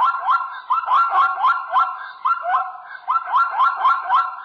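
Zebra calling: a fast run of high, barking yelps, each rising sharply in pitch and then levelling off, about three a second, with a short break midway.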